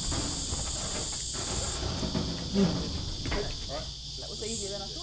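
Insects droning outdoors: a high, steady buzz that cuts off about two seconds in and comes back in short pulses near the end, over a low rumble.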